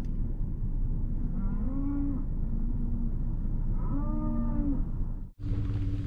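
Cattle mooing: two drawn-out moos about two seconds apart, with fainter lowing between them, over a steady low rumble. The sound drops out for an instant near the end.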